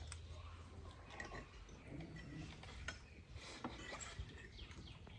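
Quiet, scattered clicks and taps of forks and spoons against plates as people eat at a table.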